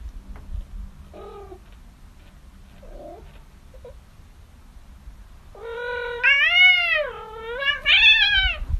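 A kitten meowing: a few faint short mews, then two long, loud meows near the end, each rising and then falling in pitch.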